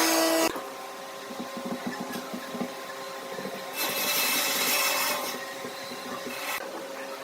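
Woodworking tool noise: a loud machine sound cuts off about half a second in, then quieter scraping or rubbing on wood, with a louder hissing stretch in the middle.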